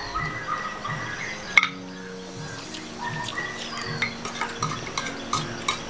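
Chopsticks clicking and scraping against plates as two people pick up noodles, in small irregular taps. One sharper knock comes about one and a half seconds in, and the clicks come quicker near the end.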